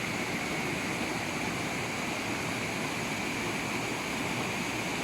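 Steady rushing of a mountain river, an even wash of water noise with no breaks.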